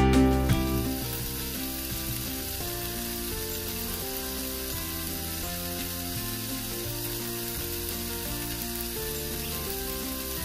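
Stir-fried cabbage, carrots, onion and chicken sizzling steadily in an oiled pan, with quiet background music.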